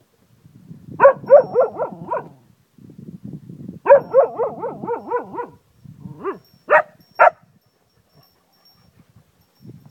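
Cocker spaniel howling in two bouts, each a run of quick wavering notes, then two short sharp barks about two-thirds of the way through.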